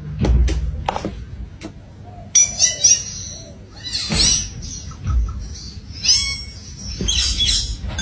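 A bird calling in repeated high, quick chirps from about two seconds in. A few sharp clicks come before the calls, and there are low thumps in between.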